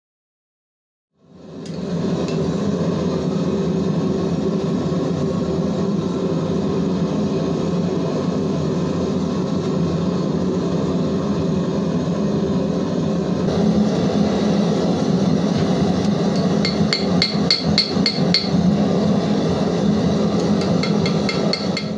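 Propane gas forge burner running with a steady roar. In the last third, a hand hammer strikes red-hot iron on the anvil in quick runs of ringing blows, attempting a forge weld.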